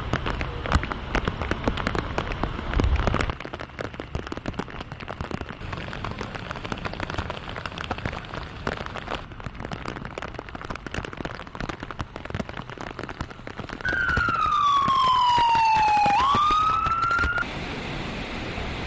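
Heavy rain with a dense crackling patter and a low rumble about three seconds in. About fourteen seconds in, an emergency vehicle siren sounds for about three seconds, a falling wail that swoops back up before breaking off suddenly, leaving a steady rain hiss.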